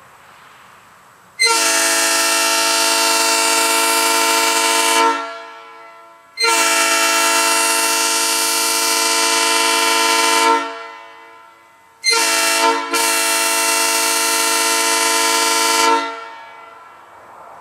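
Nathan Airchimes train air horn, heard from about 150 feet away, blown in the grade-crossing pattern. There are two long blasts, then a short one that runs almost straight into a final long one. Each blast is a steady multi-note chord that stops with a short fading tail.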